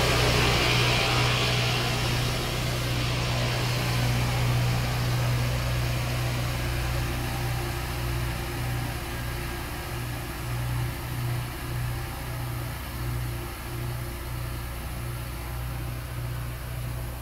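Rail grinding machine working the track: the grinding stones on the rails give a harsh hiss over the machine's steady low engine drone. The hiss fades in the first few seconds as the machine moves away, and the drone, slowly getting quieter, throbs at an even rhythm in the second half.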